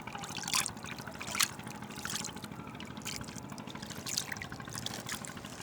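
Nile river water trickling and lapping, with small irregular splashes.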